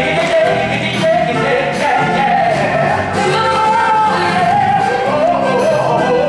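Upbeat 1960s-style number from a stage musical: singing voices over a band accompaniment with a steady beat.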